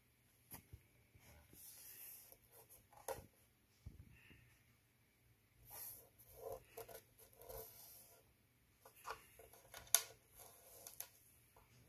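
Faint rubbing and scratching of a finger over a wooden tabletop, with scattered small clicks and one sharper click near the end.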